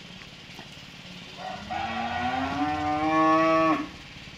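A cow bellowing once. The long moo starts about a second and a half in, rises in pitch, holds, and cuts off sharply after a little over two seconds. She is in difficult labour (dystocia), with the vet's arm inside her birth canal.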